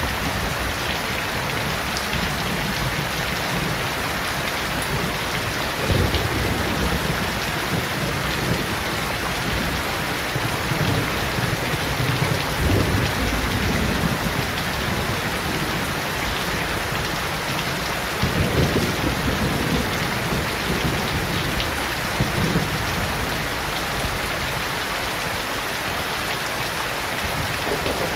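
Steady rain falling on shrub leaves and a wet paved yard, a dense even hiss. Low rumbles rise under it a few times, about six, thirteen and nineteen seconds in.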